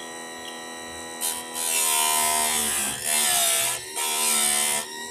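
Chicago Electric chainsaw chain sharpener's motor running with a steady whine. From about a second in, its grinding wheel is brought down onto a chain tooth three times, giving a harsh grinding rasp each time, and the motor's pitch sags under each pass.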